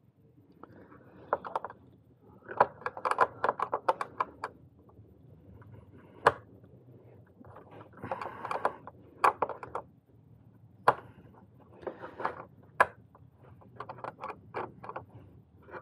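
Ratchet wrench clicking in several short runs of rapid clicks as the handle is swung back and forth, undoing a 10 mm bolt on the intake's mass airflow sensor. A few single sharp metal taps fall between the runs.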